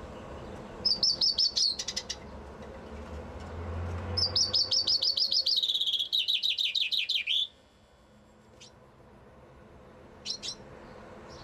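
Common chaffinch singing: a short, broken-off song about a second in, then a full song of fast repeated notes that step down in pitch and end in a quick flourish. A couple of short chirps follow near the end.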